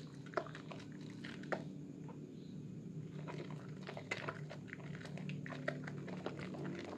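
Wet hands squeezing and rubbing a bar of Sehat red soap in thick lather: wet squishing of the foam with many sharp little pops and crackles, over a low steady hum.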